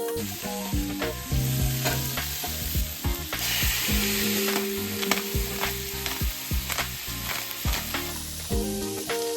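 Food sizzling and frying in a pan, with scraping clicks of stirring, over a slow background tune of low notes.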